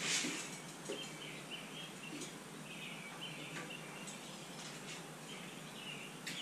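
Springtime songbirds chirping steadily in short, repeated calls, with a few faint clicks and knocks of fishing gear being handled.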